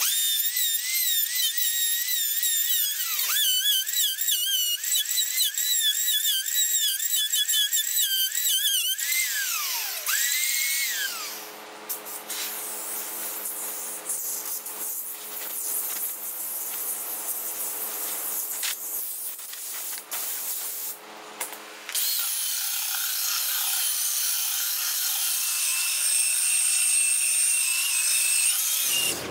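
Electric wood router running, its high whine wavering in pitch as it cuts into thick OSB. About ten seconds in it winds down, and after a quieter stretch it comes back at full speed, a steady high whine, about two-thirds of the way through.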